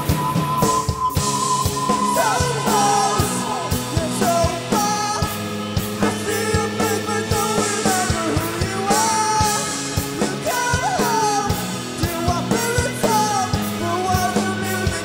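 Rock band playing live: electric guitar, bass guitar, drum kit and keyboard, with a lead vocal singing over the steady drum beat.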